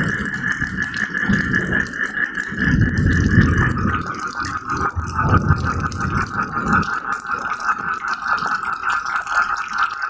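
Steady rain with a dense frog chorus holding one steady band of rapid pulsing calls, under low rolling thunder that swells several times, the loudest rumble about three seconds in.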